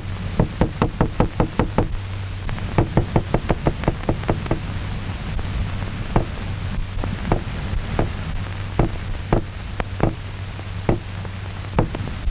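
Sharp knocks on a hard surface, struck as a sound stimulus to test the isolated dog's head's reaction to noise. They come quickly at first, about five a second, then again in a short fast run, then one at a time about a second apart, over a steady low hum of the old optical soundtrack.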